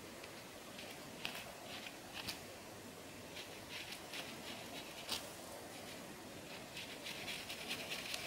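Fine-toothed comb scraping over the scalp through flaky, dandruff-laden hair: faint, irregular short scratches, a dozen or so, with one sharper stroke about halfway.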